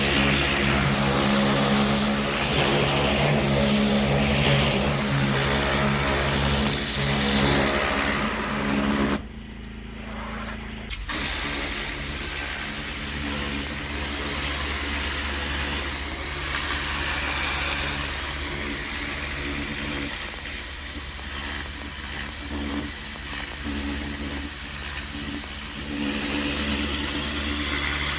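A small gasoline engine running steadily. It drops out briefly about a third of the way through, then carries on.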